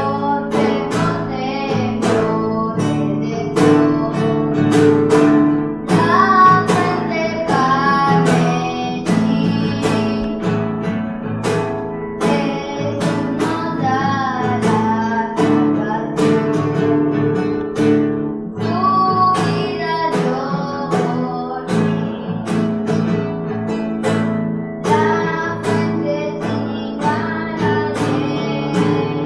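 A boy singing a hymn in Spanish, accompanied by a strummed acoustic guitar.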